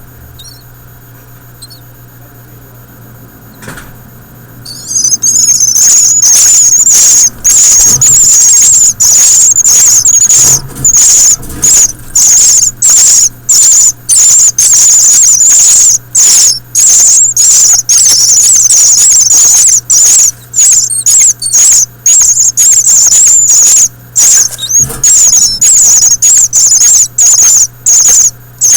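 Newly hatched nestlings begging for food: a loud, high-pitched chorus of chirping that starts about five seconds in and goes on in long runs with short breaks, the sound they make when a parent bird arrives to feed them. A few faint chirps come before it.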